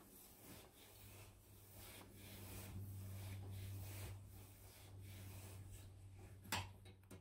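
Flat steel lapping strip charged with diamond abrasive rubbing back and forth in a steel keyway, a faint gritty scrape on each stroke, roughly one stroke a second. A sharper knock near the end.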